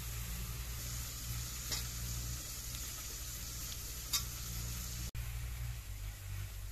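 Steady sizzling hiss of food cooking in a lidded wok over a wood-fired mud stove, with two short sharp crackles, the louder one about four seconds in. The sound drops out for an instant about five seconds in.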